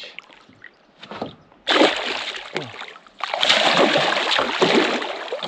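Water splashing in two rough bursts, the first about a second and a half in and the second from about three seconds on, as a freshly landed haimara thrashes in the water.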